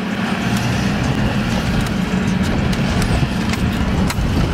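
Steady engine and road noise heard from inside a car's cabin as it moves slowly in traffic, with a few faint clicks.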